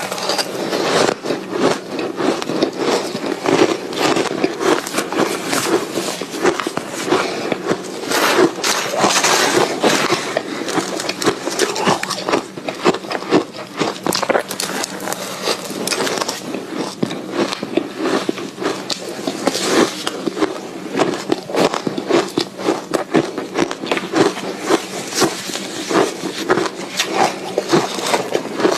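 Soft ice being bitten and chewed close to the microphone: a continuous run of dense crunching crackles and clicks.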